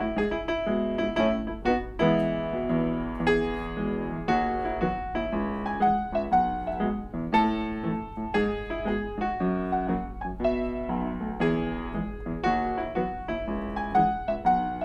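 Solo piano playing a melody over sustained lower chords.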